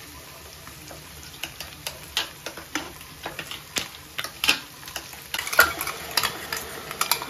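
Spatula stirring chicken pieces in a sizzling frying pan: a steady sizzle under irregular scrapes and clinks on the pan. The scraping gets louder and busier about five and a half seconds in.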